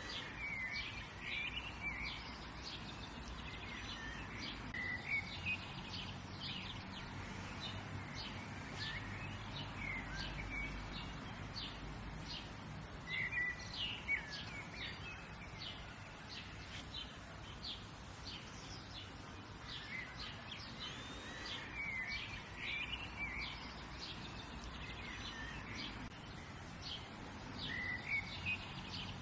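Several birds chirping and singing outdoors, with many short chirps and trills throughout, over a faint low background rumble.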